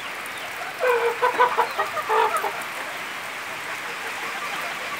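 Chickens clucking in a short run of calls starting about a second in, over the steady hiss of falling rain.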